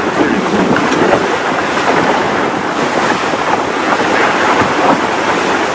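Loud wind buffeting the microphone over the rushing wash of water along the hull of a tour boat moving slowly through brash ice.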